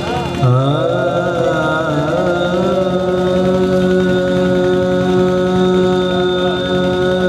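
Singing with accompaniment: about half a second in, a voice winds through an ornamented phrase, then holds one long steady note until the end, over a sustained drone.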